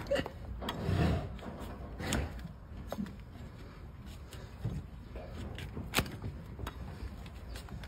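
Large flat hoof-trimming blade shearing through a donkey's hoof horn against a tyre-rubber pad: a few sharp cracks as slices of horn come away, the loudest about six seconds in, with duller thuds in between.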